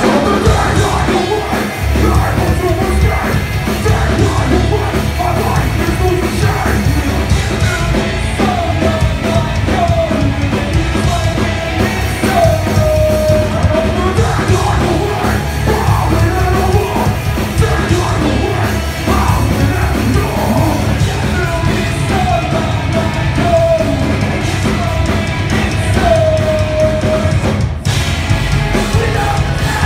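Live metalcore band playing: electric guitars, bass and drums with a shouted and sung vocal over the top.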